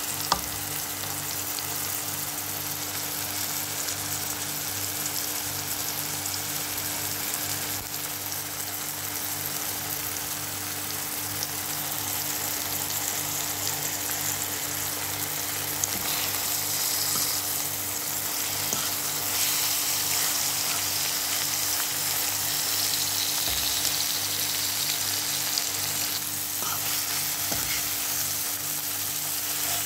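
Eggs frying in tomato sauce in a pan, a steady sizzle that grows a little louder about halfway through, with a steady low hum underneath. Near the end, a fork stirs and breaks up the eggs in the pan.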